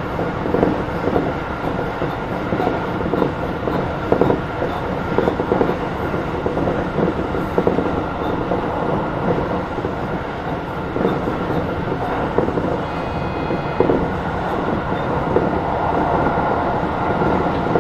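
Tokyo Metro 16000 series electric train running along the track: a steady rumble of wheels on rail, with wheels clicking over rail joints now and then. About thirteen seconds in comes a brief high ringing tone.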